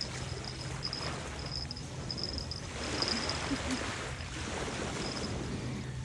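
Small waves washing onto a pebbly sand beach, swelling a little about three seconds in. A faint, high, broken tone comes and goes over the wash.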